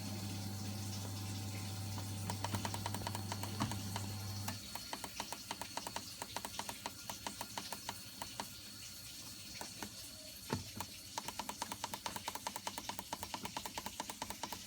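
Rapid, even clicking from a Vaillant boiler's controls as they are worked through the diagnostic menu, with a pause in the middle. A steady low hum stops about four and a half seconds in.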